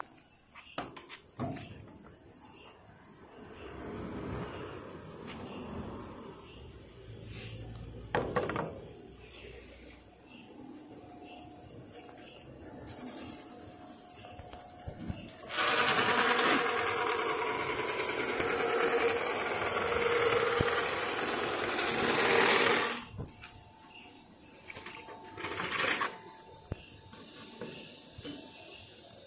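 Cabinet door brush sanding machine running with a steady high-pitched whine. From about 15 to 23 seconds a much louder rasping noise sets in as a wooden door panel passes through the rotating abrasive brush heads, then drops back to the running whine.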